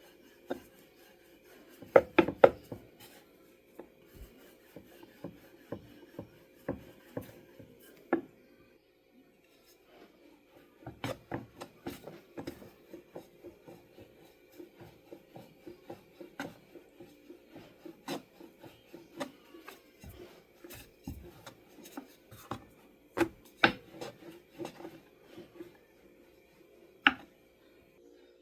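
Dough being worked by hand on a wooden board: rubbing strokes broken by irregular taps and knocks, with a cluster of louder knocks about two seconds in and more near the end.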